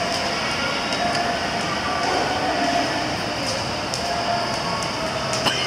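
Steady background noise of an indoor swimming pool hall, with a few faint clicks and one sharper click near the end.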